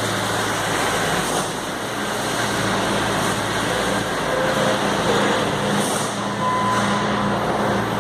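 JCB Robot skid steer loader's diesel engine running steadily while it works a sweep collector, with a couple of short higher whines in the second half.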